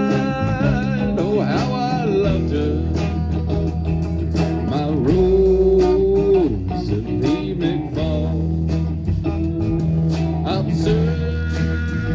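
Live band music with electric guitar, bass and drums in a bluesy style, with a held sung or played melody line.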